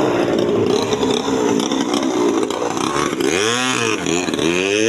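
TD40 two-stroke grass-cutter engine driving a small model boat, running at high revs with a steady buzz. About three seconds in its pitch dips and then climbs again as the boat is set on the water and speeds off.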